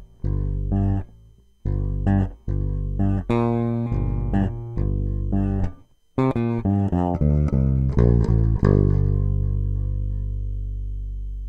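Outro music: a short phrase of plucked, guitar-like notes, ending on one long held note that slowly fades.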